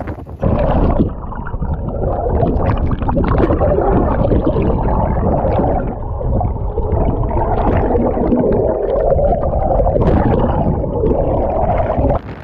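Muffled rushing and gurgling of churning water and bubbles as heard by a camera held underwater, starting abruptly about half a second in as it goes under and cutting off just before the end.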